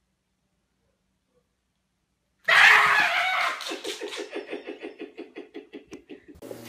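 Silent at first, then about two and a half seconds in a sudden loud shriek, followed by a person's rapid, rhythmic laughter, about five bursts a second.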